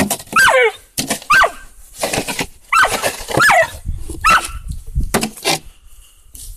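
Rough collie giving about six short, high-pitched barks while a plastic snow shovel scrapes through snow.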